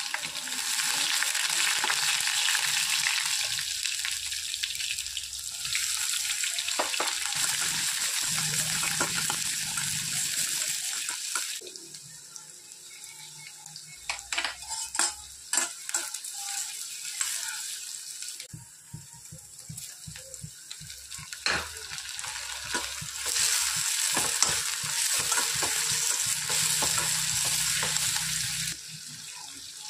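Oil sizzling hard in a stainless steel kadai as cumin, curry leaves and crushed ginger-garlic fry. The sizzle falls away about twelve seconds in, once sliced onions are in the pan, and a perforated steel ladle clinks and scrapes against the pan as they are stirred; near the end the sizzle comes back strongly, then drops off just before the close.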